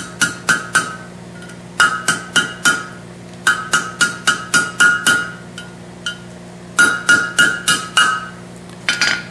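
Light hammer blows on hot 3/8-inch round bar against the anvil horn, curling it into a tail. The strikes come in quick runs of about four to seven with short pauses between, each ringing with a clear high tone.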